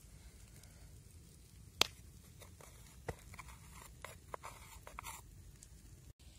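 Clay and wooden kitchenware knocking: one sharp tap about two seconds in, another about a second later, then light taps and soft scraping as ground turmeric is tipped from a small clay cup into oil in a clay pot and stirred with a wooden spoon.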